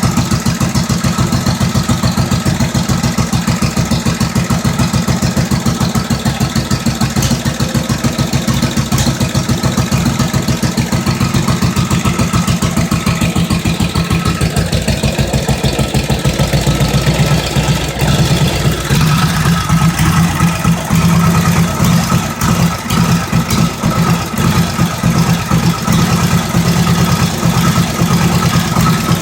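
Freshly rebuilt 1945 Indian Chief flathead V-twin running at idle, a rapid, even exhaust beat. About two-thirds of the way through the beat slows and turns lumpier and uneven as the idle drops.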